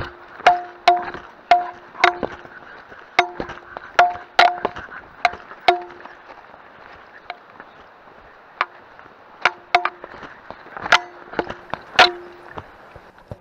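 Walking on a rocky trail: sharp clicks about two a second, most followed by a brief low ring. The clicks thin out and come irregularly after about six seconds.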